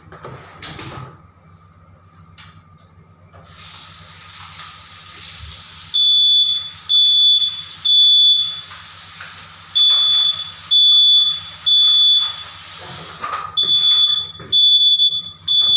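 A hiss starts, then a fire alarm sounder goes off with high-pitched beeps in groups of three, about one beep a second with a short pause between groups. This is the three-pulse temporal evacuation pattern, set off by a detector being tested.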